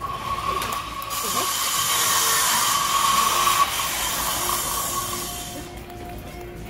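A loud, steady hiss with a high whine running through it, swelling about a second in and fading out near the end.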